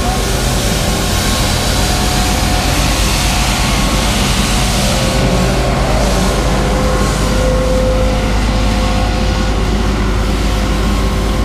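Street sweeper working close by, its gutter brush spinning on the pavement: a loud, steady, noisy din with several steady whining tones over it.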